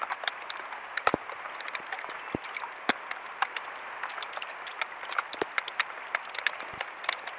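Light rain falling on open lake water: a steady hiss with many scattered, irregular sharp taps of single drops.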